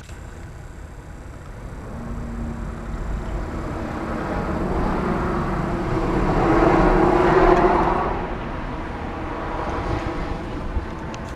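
A road vehicle passing by: its noise builds for several seconds, is loudest about seven seconds in, then falls away to a steady outdoor background.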